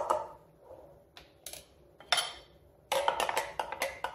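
Metal spoon clinking against the inside of a glass mason jar while stirring a chia seed drink. A quick run of clinks comes at the start, then a few scattered ones, then rapid clinking again from about three seconds in.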